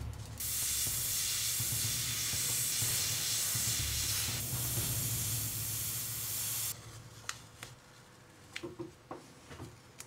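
Airbrush spraying paint: a steady hiss of air that starts just after the beginning and cuts off about seven seconds in, followed by a few light clicks.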